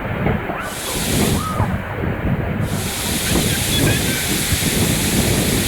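Steady roar of a tall waterfall crashing into its pool, with wind buffeting the microphone.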